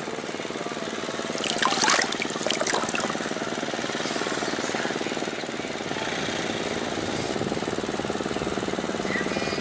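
A small engine running steadily with an even drone, plus a few brief clicks about two seconds in.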